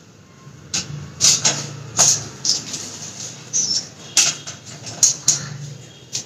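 Hair being lifted, combed and handled by a stylist close to the microphone: about a dozen short swishes and rustles at an uneven pace.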